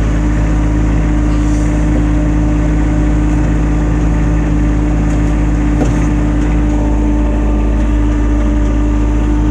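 ATV engine running at a steady, even speed while being ridden, with no change in revs.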